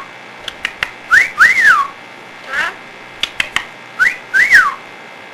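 Pet parrot whistling a two-part phrase twice: a short rising note, then a longer note that rises and falls. Short clicks and chirps come in between.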